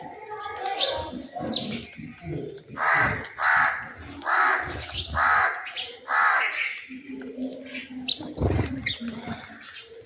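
A crow cawing five times in quick succession, roughly one harsh call every 0.8 s, with house sparrows giving short high chirps before and after. A dull low thump comes near the end.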